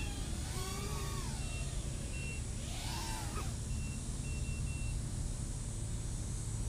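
Rotor X Atom 120 micro FPV racing quad's brushless motors whining in flight, the pitch rising and falling with the throttle, then fading out after about three and a half seconds as the flight ends. Short high beeps repeat until about five seconds in, over a steady low rumble.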